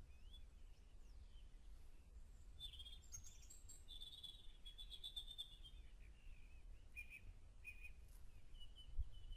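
Faint birdsong: several small birds chirping, with a longer trill about four to five seconds in, over a steady low rumble. A single low thump near the end.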